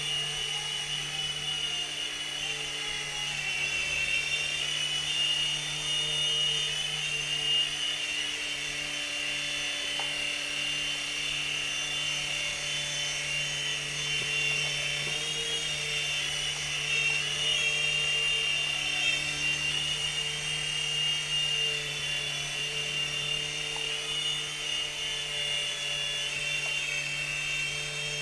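DFD Firewolf F103 mini RC helicopter in flight: a steady high-pitched whine from its small electric motors and rotors, the pitch wavering slightly as the throttle shifts.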